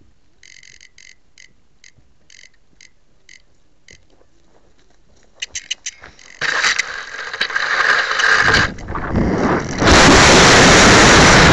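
Handling noise and scraping on a glider-mounted keychain camera from about six seconds in, then a loud, distorted rush of wind over the microphone from about ten seconds in as the discus-launch glider is whirled and thrown. Before that come faint short chirps, about two a second.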